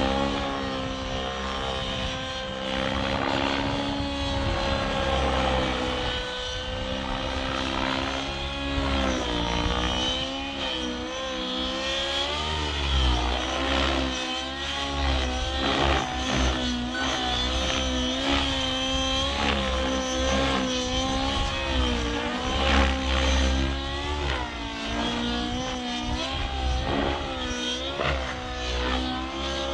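Nitro RC helicopter (SAB Goblin Raw Nitro) in aerobatic flight: its OS 91HZ-R two-stroke glow engine and Rotortech Ultimate 700 main blades give a continuous pitched drone. The drone is fairly steady for the first few seconds, then its pitch swoops up and down with each manoeuvre.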